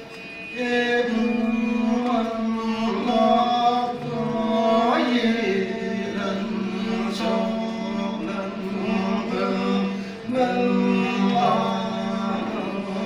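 Two men singing a folk song together in long held notes, accompanied by a string instrument. The singing picks up again about half a second in after a short pause.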